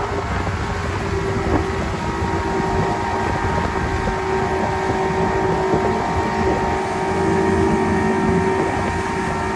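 Boat motor running steadily underway, with wind on the microphone.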